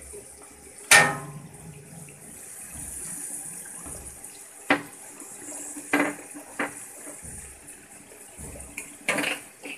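Sliced onions and bay leaves frying in oil in a steel pot, a steady sizzle, with a few sharp metallic clanks of a utensil on the pot, the loudest about a second in.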